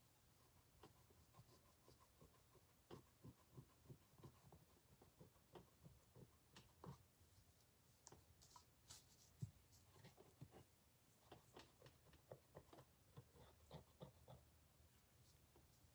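Near silence with faint, irregular scratchy rubbing and light ticks: wax being wiped off a shoe's rubber sole by hand.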